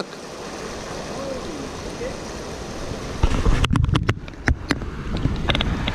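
Water pouring over a concrete spillway weir, a steady rushing hiss. From about three seconds in, low rumbling and several sharp knocks on the microphone as it is handled and moved.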